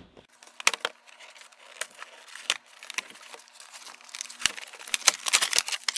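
A cardboard toy box being opened by hand. Scattered clicks and scrapes give way, about four seconds in, to a denser stretch of packaging crinkling and tearing.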